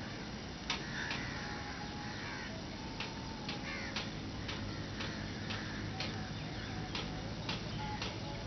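Outdoor background with sharp, irregular clicks about every half second to second, and faint chirping bird calls.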